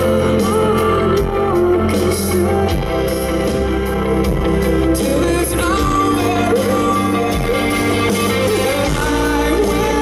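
Live rock band playing, with a male lead singer's vocals over bass and guitar.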